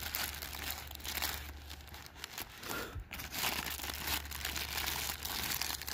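Thin clear plastic food-ration accessory pouch crinkling and rustling in irregular crackles as hands tear it open and handle it.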